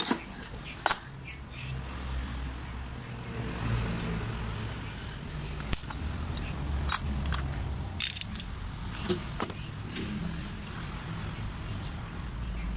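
Small metal parts of a diesel injection pump clicking and clinking as they are handled and fitted by hand on a metal workbench: a handful of sharp, scattered clicks, the loudest about a second in, over a low steady background rumble.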